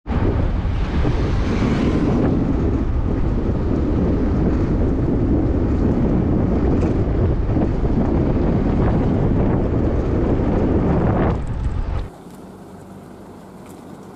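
Wind rushing over the microphone of a camera riding on a moving motorcycle, a loud, even rumble that covers the bike's own sound. About twelve seconds in it cuts off suddenly to a much quieter, steady background.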